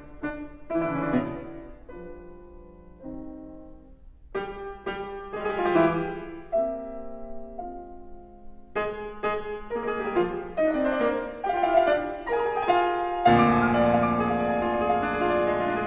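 Solo classical piano played on a Fazioli concert grand: a quieter, sparser stretch of held notes and chords a couple of seconds in, then a fuller, louder passage from about two-thirds of the way through.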